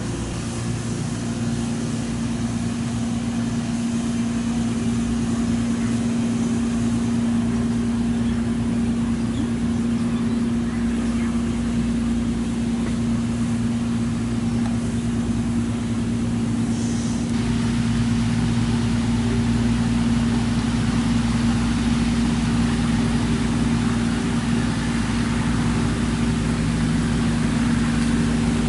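An engine or motor running steadily at one constant pitch, a continuous hum.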